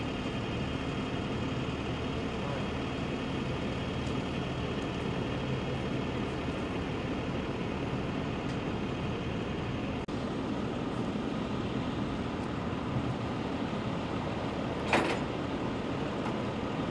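Large diesel engine of a fire engine idling steadily, a constant low rumble. A single short, sharp knock stands out near the end.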